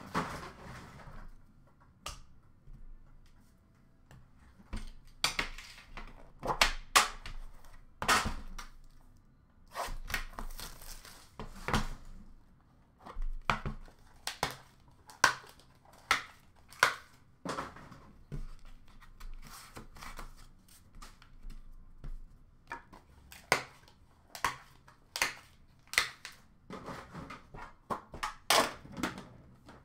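Hockey card packaging being torn open and handled: wrapping and cardboard tearing and crinkling, with irregular sharp clicks and knocks as a metal card tin is opened and cards are handled.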